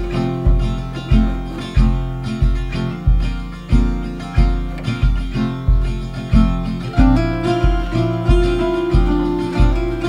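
Background music: acoustic guitar picking, with a low bass note on an even, steady beat.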